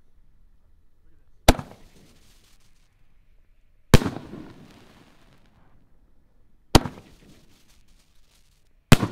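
Raccoon Fireworks 5-inch canister shells going off: four sharp bangs a couple of seconds apart, each trailing off in a fading rumble.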